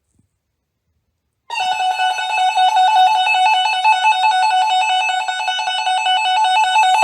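A 12-247 weather alert radio's alarm sounding suddenly about a second and a half in: a loud, rapidly warbling two-tone beep, set off by the NOAA Weather Radio Required Weekly Test.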